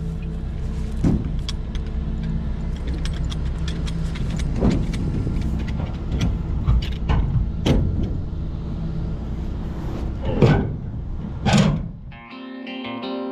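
A grain truck's diesel engine runs steadily, heard from inside the cab, with a few sharp knocks and clicks over it. Near the end the engine sound cuts off and electric guitar music begins.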